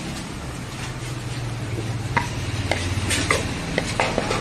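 Spoon scraping and tapping against a plastic bowl as meat masala is spooned onto a parotta, a run of sharp clicks starting about two seconds in. A steady low hum runs underneath.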